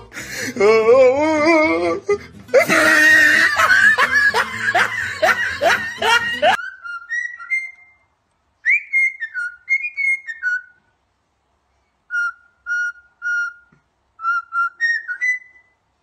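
A grey cockatiel whistling a short tune in clear, separate notes that step and slide between two pitches, with runs of repeated notes near the end. Before it, the first six seconds hold louder wavering, warbling calls and then harsh noisy cries, which cut off suddenly.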